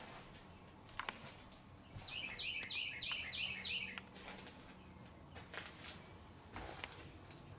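A bird singing a fast run of about eight repeated, falling chirps for about two seconds, starting about two seconds in, over a steady high-pitched tone, with a few short knocks.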